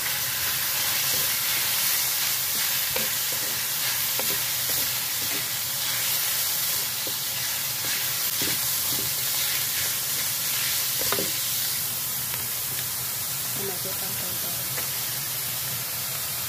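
Minced pork and sliced mushrooms sizzling in hot oil in a wok, stir-fried with a wooden spatula. The sizzle is a steady hiss, with the spatula scraping the pan now and then.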